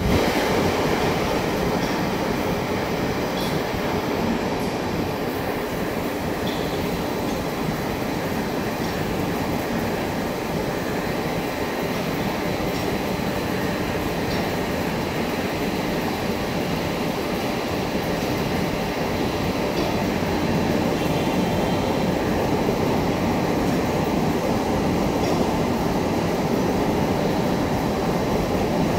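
Vertical turret lathe running, its rotating table turning a large metal ring while the tool cuts: a steady mechanical rumble and whir with faint scattered clicks.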